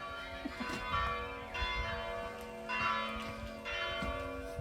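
Bells ringing: a new strike about every second, each leaving several long ringing tones that overlap.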